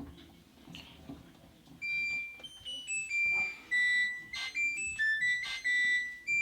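An LG F14B3PDS7 washing machine's electronic beeper playing a short melody of high, pure notes that step up and down in pitch, starting about two seconds in, with a few sharp clicks in the second half.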